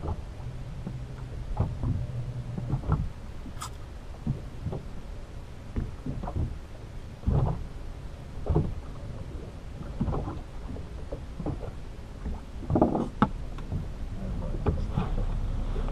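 Irregular knocks and bumps on a small boat as bait and tackle are handled on deck, over a low background hiss; a low steady hum runs for the first three seconds or so.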